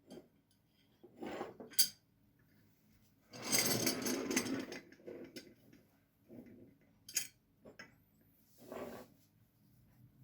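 Kitchenware being handled: light clicks and taps of a spoon against a cup, with one longer noisy rush of about a second and a half, about three and a half seconds in, as quince seeds and water go into the cup.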